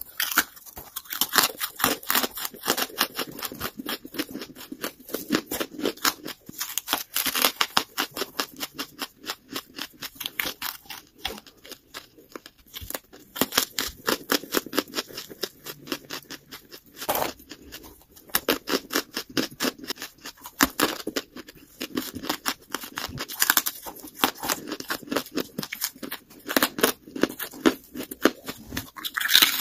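Lump charcoal being bitten and chewed: a dense, continuous run of crisp crunches and crackles as the brittle pieces break between the teeth.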